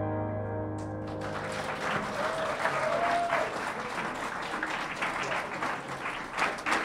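A piano's final chord dying away, then an audience clapping from about a second in.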